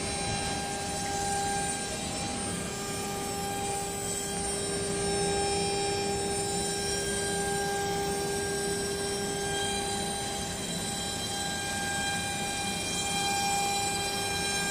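CNC router carving grooves into EVA foam sheet: the spindle running at speed gives a steady whine with several overtones over a constant hiss of cutting and machine noise.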